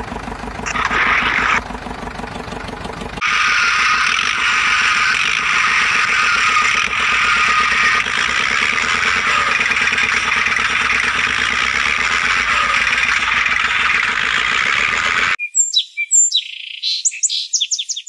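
Steady engine running sound for a toy tractor. It cuts off suddenly about three seconds before the end and gives way to a quick series of high chirping glides.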